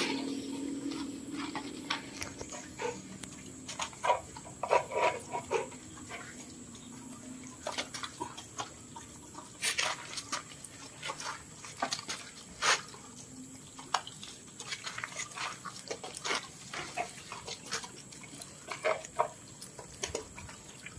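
A pack of dogs eating rice from plastic bowls: irregular wet smacking, chewing and lapping sounds, with short clicks from many mouths at once.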